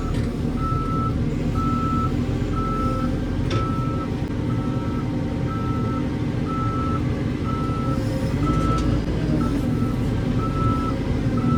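Backhoe loader's reversing alarm beeping about once a second, a single steady pitch, over its diesel engine running steadily.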